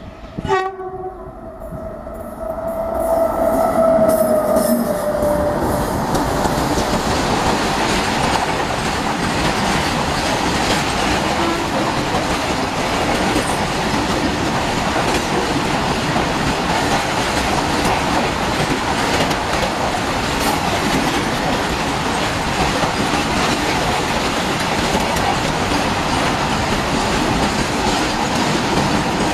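Indian Railways electric locomotive hauling a freight train of covered box wagons: a short horn note about half a second in and a held tone that dips in pitch as the locomotive passes, then the long rake of wagons rolling by close with a steady loud rumble and wheel clatter over the rail joints.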